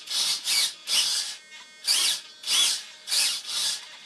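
Small RC servos whirring in about eight short bursts, the pitch sliding up and down within each, as the glider's control surfaces are driven back and forth from the transmitter in a pre-flight control check.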